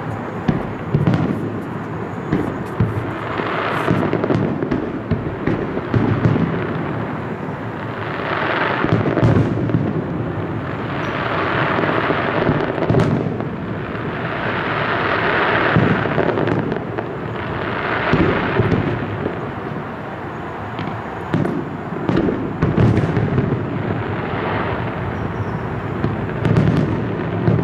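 Aerial fireworks display: shells bursting one after another, with frequent sharp bangs and a steady rumble that swells and fades every few seconds.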